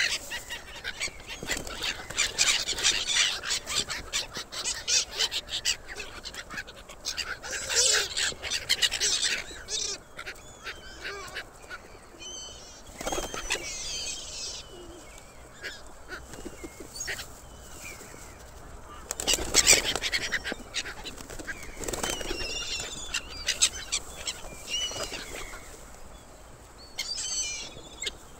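A flock of gulls calling with harsh, repeated cries, mixed with bouts of wing flapping and scuffling as the birds jostle over food.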